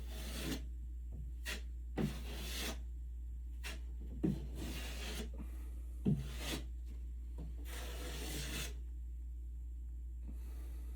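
Hand tool scraping across a drywall ceiling in about six separate strokes, roughly two seconds apart, each starting sharply, the last one faint. A steady low hum runs underneath.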